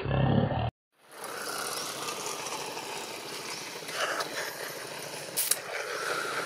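A long-tailed macaque's harsh call, cut off abruptly within the first second. A steady outdoor background noise follows, with faint high chirps and a few small clicks.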